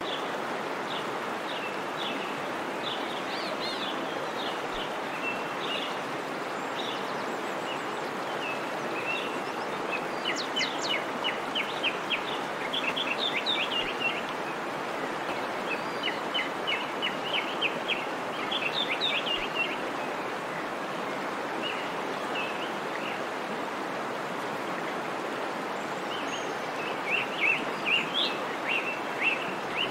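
Small birds chirping in quick runs of short high notes, busiest in several bouts, over a steady background hiss.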